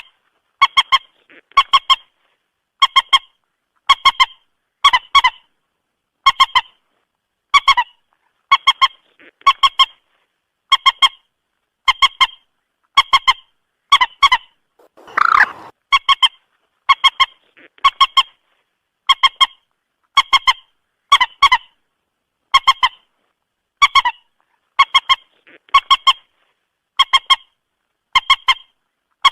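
Moorhen calling: short, honking double notes repeated about once a second, with one longer, lower call about halfway through. It is a clean recording played as a trapping lure.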